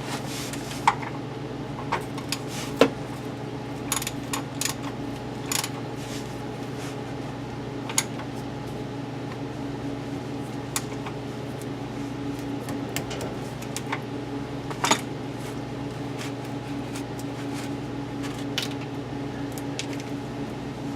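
Metal tools and parts clinking and being set down at irregular moments, a dozen or so sharp clinks over a steady electrical hum.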